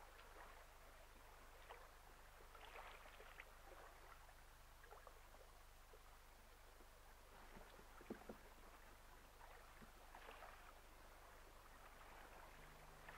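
Faint water splashing and lapping against the hull of a sailing yacht moving under sail, coming and going in uneven swells, with two short knocks about eight seconds in.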